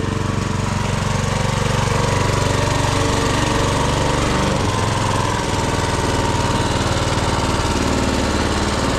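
Walk-behind tractor engine in a Muravey three-wheeled scooter running steadily under load as the scooter drives in second gear, its pitch shifting about halfway through.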